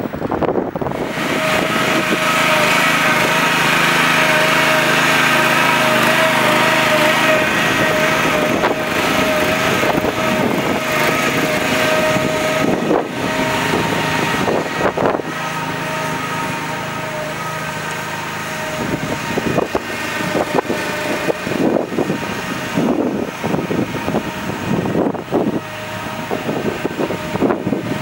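Small engine of an EZ Mover Turbo shed mover running while it moves a shed on dollies. It is steady for the first several seconds, then runs unevenly with scattered thumps.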